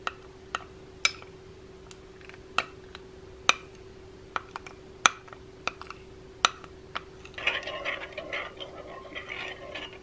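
Metal spoon clicking against glass now and then as honey is scraped out of a small glass cup. About seven and a half seconds in, it gives way to a quick run of scraping and clinking as the spoon stirs beaten eggs in a glass mixing bowl. A faint steady hum runs underneath.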